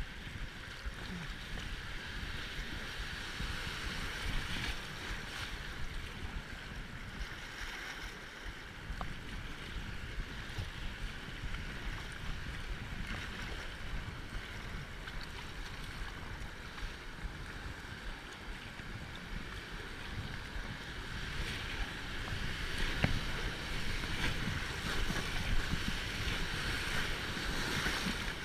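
Rushing whitewater of a river rapid, with wind buffeting the microphone; the water grows louder over the last several seconds.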